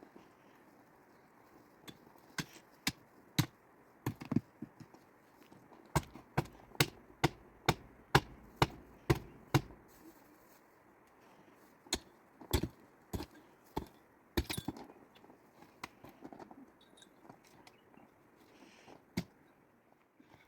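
Repeated sharp blows of a hand tool, chopping or striking, coming in irregular runs, with a steady run of about two blows a second in the middle stretch.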